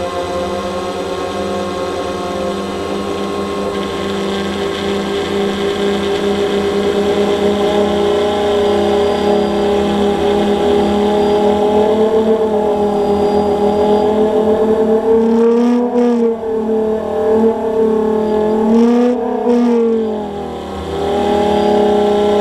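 Quadcopter drone's motors and propellers whirring steadily in flight, heard through the drone's onboard camera. The pitch swells up and falls back twice in the second half as the drone manoeuvres.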